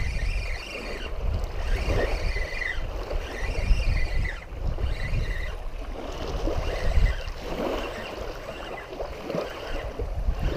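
Wind buffeting the microphone over small waves lapping on a gravel shoreline.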